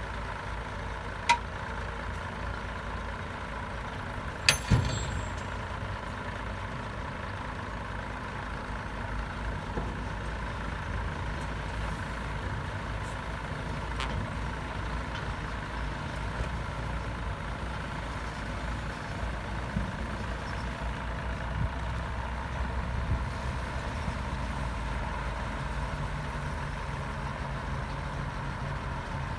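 Heavy diesel earthmoving machinery running steadily. There is a sharp click about a second in and two metallic knocks near five seconds.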